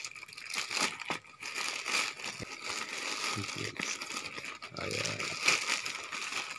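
Plastic courier mailer bag crinkling and rustling as it is handled and pulled open by hand, in a continuous run of short crackles.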